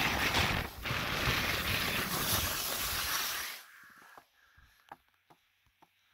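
Wind rushing over the microphone while sliding fast down a packed-snow ski run. About three and a half seconds in it cuts off abruptly as the descent stops, leaving only a few faint clicks and scuffs.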